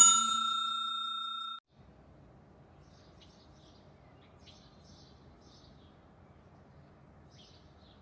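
Bell 'ding' sound effect of a subscribe-button animation, ringing and then cutting off abruptly about a second and a half in. After it, faint outdoor ambience with scattered faint bird chirps.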